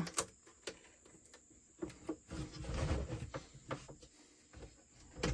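Plastic battery lid being pulled free of the band of sealant that glued it to the case: faint scattered clicks and creaks, with a short stretch of rubbing about two seconds in.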